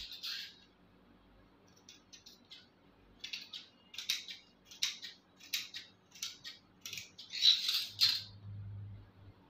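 Large steel tailor's scissors cutting through folded satin fabric: a run of short, crisp snips about two a second. The loudest sound comes near the end, as the scissors are laid down on the stone floor.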